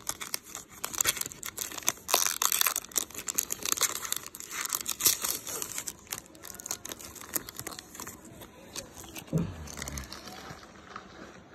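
The wrapper of a baseball card pack crinkling and tearing as it is pulled open by hand: dense crackling for the first half, thinning out after that. A soft thump comes about nine seconds in.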